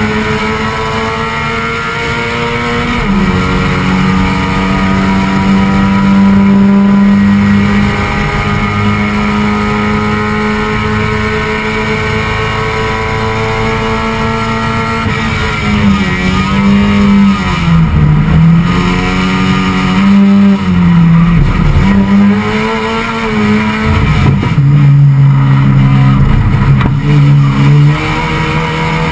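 Touring-category race car's engine heard from inside the stripped cabin, running hard at high revs with the pitch slowly climbing. About sixteen seconds in the revs fall and rise several times, then run lower near the end.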